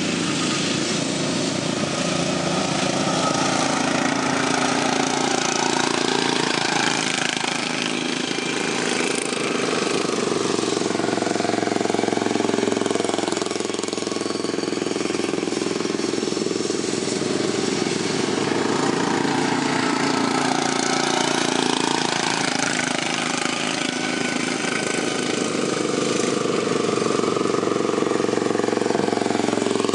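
Racing lawn mower engines running hard for a GP-class heat. Several engines are heard together, their pitch rising and falling as they rev.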